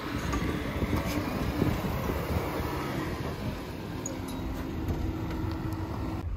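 Dodge Grand Caravan minivan driving slowly across a soft, muddy grass field, its engine running and its tyres rolling over the wet ground. It makes it through the mud without getting stuck.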